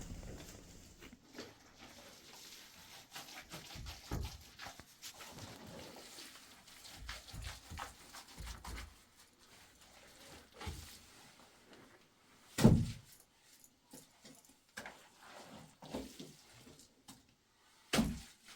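Scattered knocks and rustling, with a loud thump about two-thirds of the way through and another near the end.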